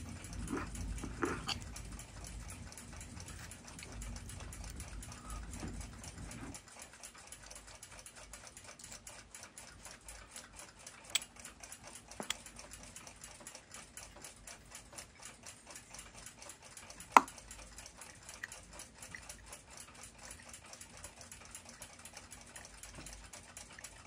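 Faint scraping of a hand deburring tool working the brass bushings of a clock mainspring barrel, with small clicks. It stops after about six seconds, leaving a steady light ticking and a few sharp clicks as the brass parts are handled.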